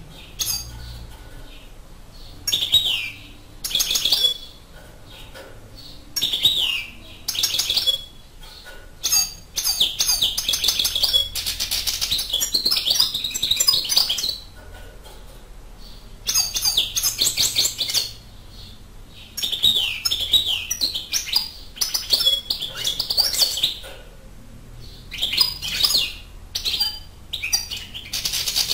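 European goldfinch singing: short twittering phrases at first, then long runs of rapid, liquid twittering song with brief pauses between them.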